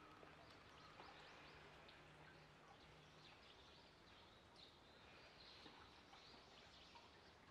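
Near silence: faint outdoor ambience with a few high bird chirps, mostly in the second half.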